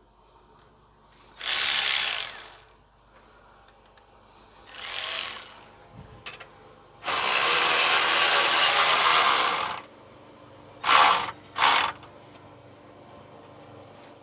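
Ratchet wrench clicking in five bursts as a hose clamp around an exhaust heat shield is tightened, the longest running about three seconds in the middle and two short ones near the end.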